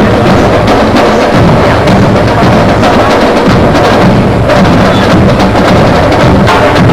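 Loud music with percussion, a steady run of short knocking beats.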